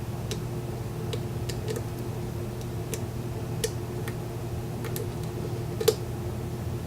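A lock pick and tension wrench working the pin stacks of a Corbin Russwin mortise cylinder during single pin picking: scattered, irregular light clicks, one louder a little before the end, over a steady low hum.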